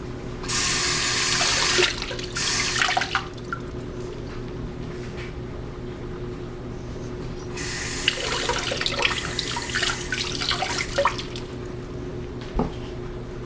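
Kitchen tap running in short spurts, water splashing over rubber gas-mask parts as the soap is rinsed off them, with small clatters of the parts in the sink. A faint steady hum sits underneath, and a single knock comes near the end.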